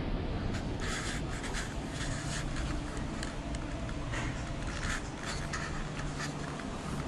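Irregular rubbing and scratching of handling noise on a handheld camera as it is carried and panned, over a steady low rumble of the room.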